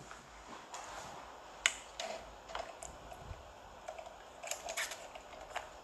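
Faint handling noise: a few soft, scattered clicks and taps close to the phone's microphone, with a drink can and straw being handled.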